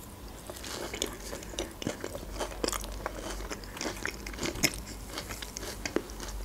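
A person biting and chewing a mouthful of fresh peach, with many small sharp wet clicks and crunches from the mouth.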